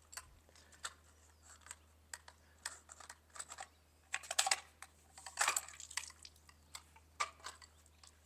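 Faint, irregular light clicks and taps from handling plastic pool pop-up cleaning heads, with a few louder clusters about halfway through.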